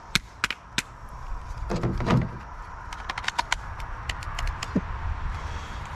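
A jammed Saker mini electric chainsaw being handled and knocked, giving sharp plastic clicks and knocks in irregular clusters. A short grunt-like voice sounds about two seconds in.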